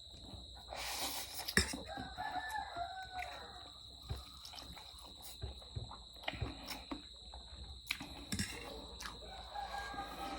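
Someone eating spicy ramen noodles, slurping and chewing with scattered sharp clicks. Twice a drawn-out call sounds in the background, about two seconds in and again near the end.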